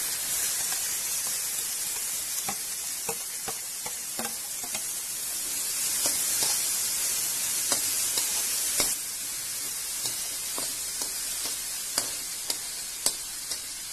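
Chopped banana stem and cooked lentils sizzling as they hit hot coconut oil in a metal kadai, with a spoon scraping and clinking against the pan as they are stirred. The sizzle eases a little about nine seconds in.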